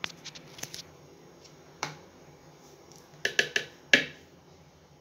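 A spoon clicking and tapping against a clear mixer jar as scoops of ice cream are pushed off into it: a few scattered taps, then a quick run of sharper knocks about three seconds in.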